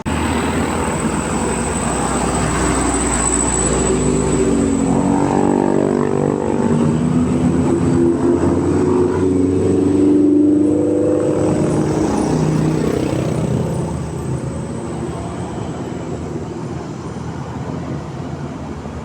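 A bus passing close by, its engine running and growing louder to a peak about halfway through before fading, while a multi-note telolet 'basuri' musical horn plays a stepping tune for several seconds in the middle.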